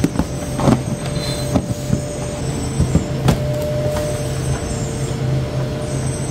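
A steady low mechanical hum under scattered clicks and knocks of containers and snack packets being handled.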